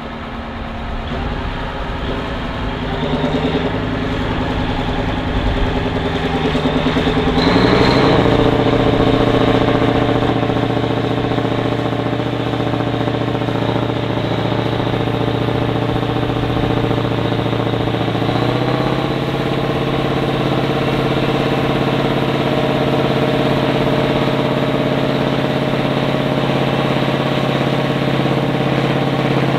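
Ford FW-60 articulated tractor's 903 V8 diesel pulling a plough under load. The engine note rises sharply about a quarter of the way in, steps up again a little past halfway, then holds steady.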